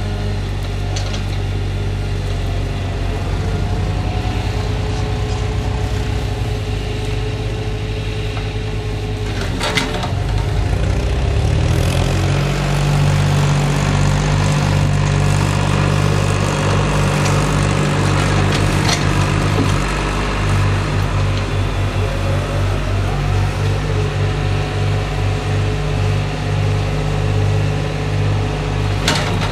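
Log truck's diesel engine running steadily while its knuckle-boom loader unloads logs, the engine speeding up about ten seconds in and holding there. A few sharp knocks of logs sound, about ten and nineteen seconds in and again near the end.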